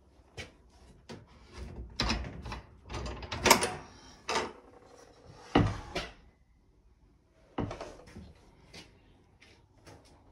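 Wooden kennel doors and hatches being handled: a run of knocks, bumps and scrapes of timber, loudest in the middle of the stretch, with a few quieter clicks later.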